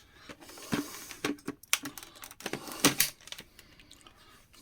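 Dyson V6 cordless vacuum being handled: a string of irregular light clicks and knocks, with a few sharper ones around the middle.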